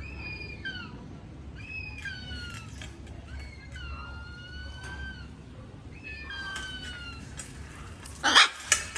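Pet parrot giving a series of drawn-out whistled calls, some held level and some bending down in pitch, one every second or two; near the end it lets out a loud harsh squawk.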